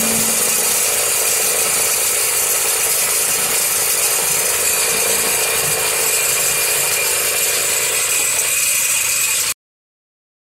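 Snowmobile's two-stroke engine running under way, heard from the rider's seat as a steady, rattly buzz. It cuts off suddenly about nine and a half seconds in.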